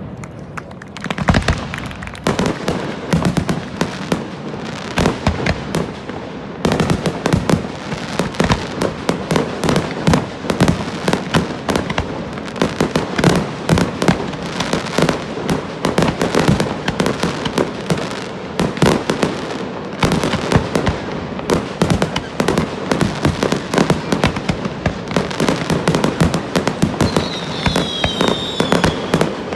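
Fireworks display: a dense, continuous barrage of bangs and crackling bursts, many per second, building up about a second in.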